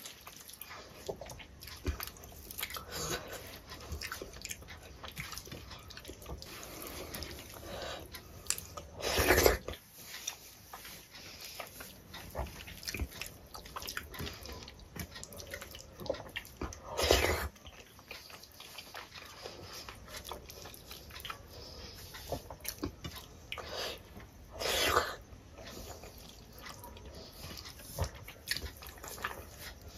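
Eating by hand: fingers squishing and mixing rice and dal on a steel plate, with wet chewing and lip smacking. Three louder sounds, each about half a second long, come at roughly eight-second intervals.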